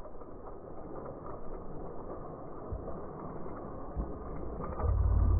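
Baitcasting fishing reel being cranked while fighting a bass, a dense muffled mechanical whirring with the high end cut off. A louder low rumble joins near the end.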